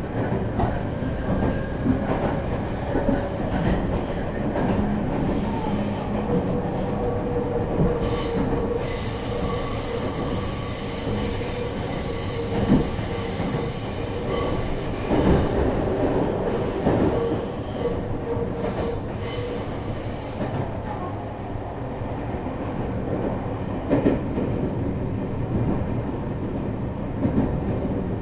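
Meitetsu 3500 series electric train running, heard from inside the car: its IGBT-VVVF inverter and traction motors hum steadily under the rolling noise, with a few rail-joint clacks. High-pitched wheel squeal on a curve sets in about nine seconds in and dies away around twenty seconds.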